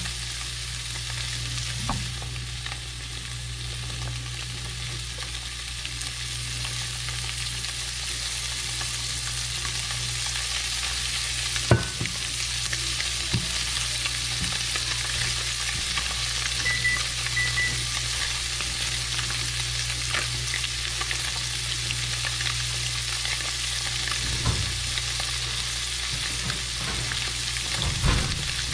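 Hybrid striped bass fillets searing in hot oil in a cast iron skillet: a steady frying sizzle, with a low hum beneath and one sharp click about twelve seconds in.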